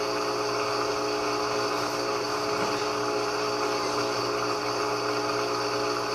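GE 15 kg top-load washing machine running its spin cycle: a steady motor-and-drum hum with no knocking of the tub against the cabinet sides, the tub now re-centred after the repair.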